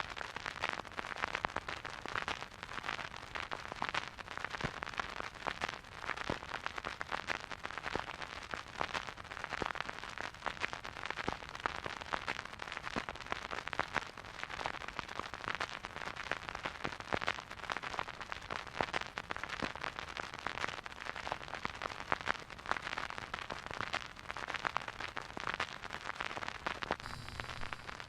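Vinyl record crackle from a record player stylus riding a silent groove: dense, irregular clicks and pops over a steady hiss.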